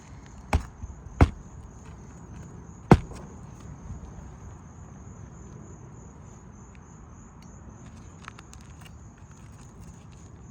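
Hammer driving a roofing nail through asphalt shingles: three sharp blows in the first three seconds, the third the loudest, then a few faint taps. Crickets trill steadily throughout.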